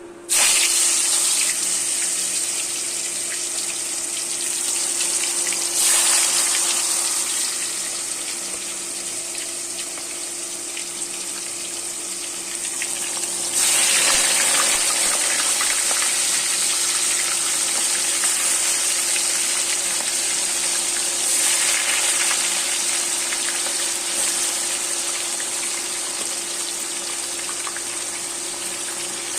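Chicken frying in hot oil: a loud, steady sizzle that starts suddenly and swells again three times, with a steady hum underneath.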